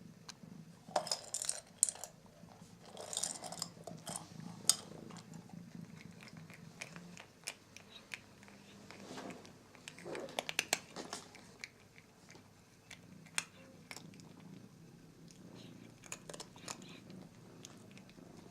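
A cat chewing dry treats, with irregular crunches and clicks that come in short clusters.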